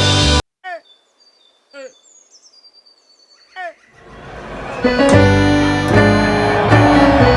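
Song backing track cuts off abruptly, and in the quiet gap a bird chirps three times among thin high whistles. The music then swells back in about four seconds in.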